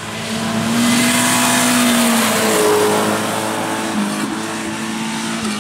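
Rally car engine held at high revs as the car drives past on a gravel special stage, its pitch dipping briefly about halfway through, over a steady hiss of tyre and road noise.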